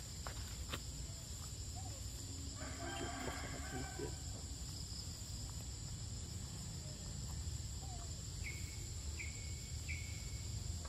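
Forest ambience with a steady, high insect drone. About two and a half seconds in comes a drawn-out call lasting about a second and a half, and near the end three short, falling chirps.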